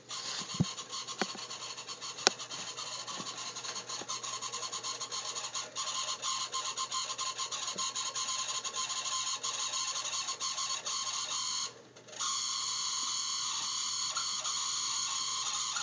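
A heater making a weird, steady high-pitched noise with a fast fine flutter in it. It cuts out for about half a second near twelve seconds in, then comes back steadier. A few sharp clicks sound in the first couple of seconds.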